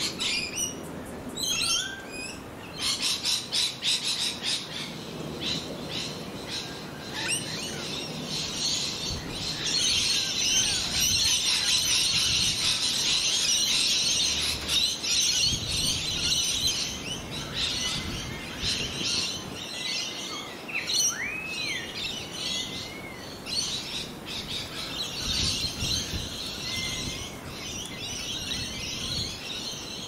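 Birds chirping and calling in a busy chorus of quick high chirps, thickest about a third of the way in, with a few whistled notes that rise and fall about two-thirds of the way through.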